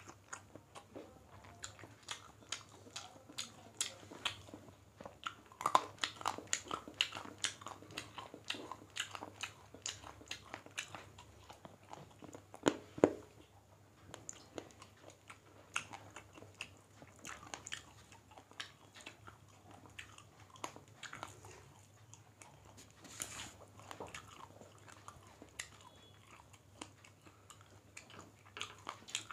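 Two people eating chicken curry and rice with their hands: chewing and wet mouth smacks, heard as many small irregular clicks, over a faint steady hum.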